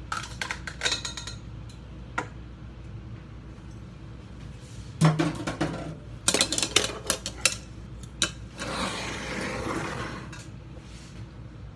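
Kitchenware being handled at the stove: clinks and knocks of a pot, metal tongs and a glass bowl, with a heavier knock about five seconds in and a quick run of clatters just after. Near the end comes about two seconds of soft steady rustling noise.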